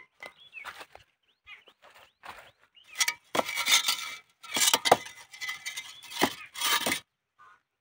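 Fired clay bricks knocked and scraped against one another, a string of sharp clinks and scrapes that is thickest in the middle seconds. The ringing clink is how a well-fired kiln brick is judged.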